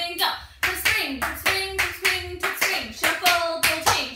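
Tap shoes striking the floor in a quick run of sharp taps, about four a second, as a tap step sequence is danced, with a voice singing the rhythm over them.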